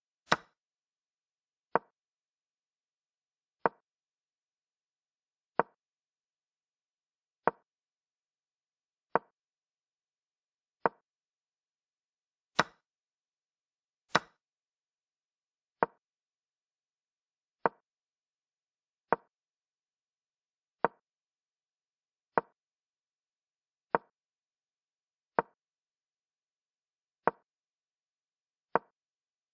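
A digital chess board's piece-move sound effects: short wooden clicks, one every one and a half to two seconds, about eighteen in all. Three of the clicks are sharper and brighter; the first of these comes as a pawn captures.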